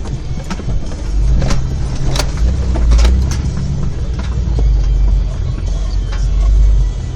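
Off-road vehicle's engine running at low speed, its revs rising and easing, with several sharp knocks and clunks from the vehicle working over rocks in a creek crossing.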